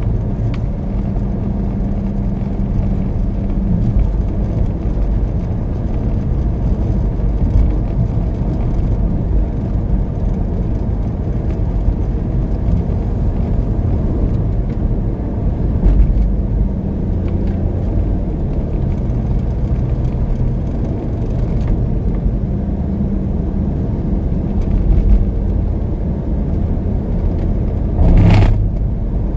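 Steady road and engine noise of a moving car heard inside its cabin, a low rumble. A brief louder noise comes near the end.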